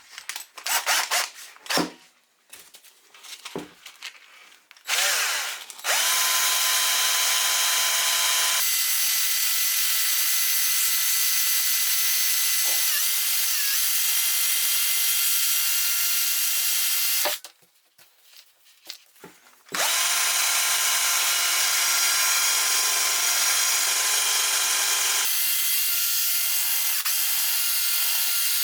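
Small rotary power tool running at a steady pitch while polishing metal toy parts, after a few seconds of clicks and handling. It stops for about two seconds a little past the middle, then starts again and runs on.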